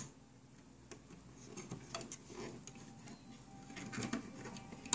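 Light clicks and taps of hands handling a plastic loom-band loom and its hook, with a few sharper ticks scattered through.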